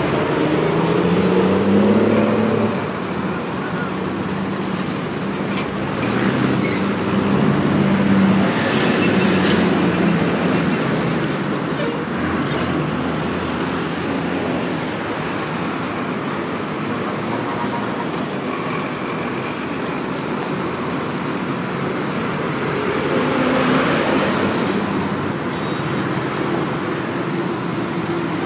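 Steady road traffic: car and bus engines running and passing continuously, with one engine note rising about a second in.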